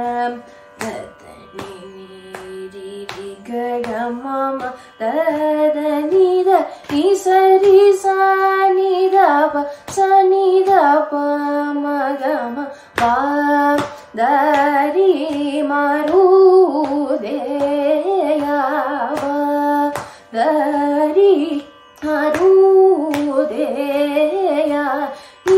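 Young woman singing Carnatic classical vocal music solo, a melodic line with sliding, ornamented notes between held tones.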